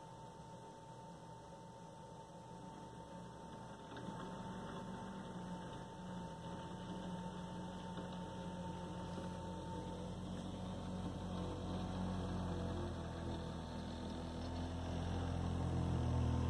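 2WD ATV's engine running under load as it pushes a front snow plow: a low drone that comes in about four seconds in and grows louder, loudest near the end as the ATV comes closer. A thin steady high whine sits under it for the first half.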